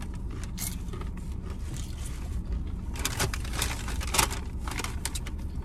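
Chewing and eating sounds: short wet smacks and clicks of forks against food bowls, scattered irregularly, over a steady low hum inside a car cabin.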